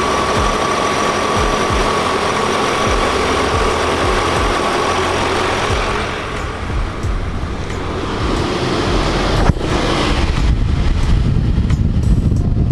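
A BMW E39 M5's newly replaced electric auxiliary fan running with the engine idling: a steady whoosh of air with a thin whine. The fan runs because the air conditioning is on, which shows that the replacement fan works. After about six seconds the fan sound fades, a single thump comes about nine and a half seconds in, and the engine's idle rumble is left.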